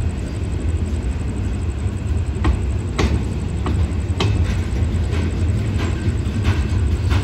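Diesel train at a station, a steady low rumble with scattered sharp clicks and knocks every second or so.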